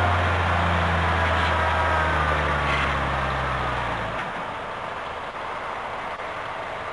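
A heavy construction vehicle's diesel engine running with a deep, steady rumble and a slowly falling whine above it. The rumble cuts off suddenly about four seconds in, leaving a steady hiss.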